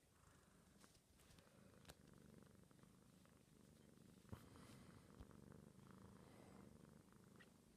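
Kitten purring softly and steadily, with a few faint clicks over it.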